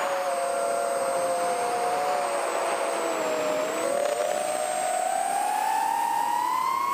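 The brushless motors and 3-inch props of a toothpick FPV quadcopter whining in flight, several close tones together. The pitch sags about halfway through, then climbs steadily as the throttle comes up.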